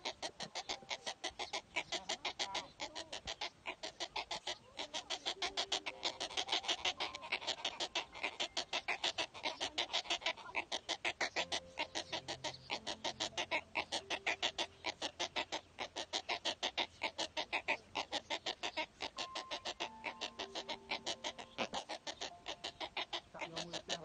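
Nestling wading birds in a stick nest giving a rapid, even run of harsh clicking begging calls, about four to five a second, without a break.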